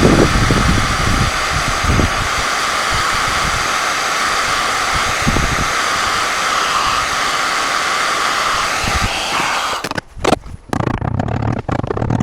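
Steady whooshing of an electric blower running, which cuts off about ten seconds in. A few light knocks and clicks follow.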